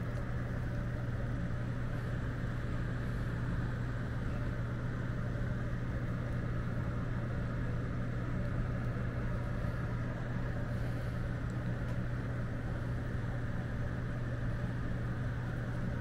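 Air handler blower running steadily: a constant low hum with an even rush of air.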